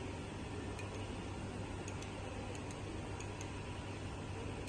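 Silman ST-85L LCD-panel laser repair machine being worked from its button console during a laser weld on a panel line: light, irregular ticks, often in pairs, over a steady low hum.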